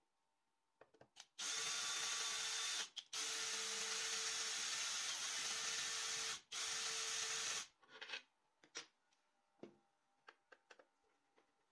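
A small power tool running for about six seconds, cutting out briefly twice, followed by a few light clicks.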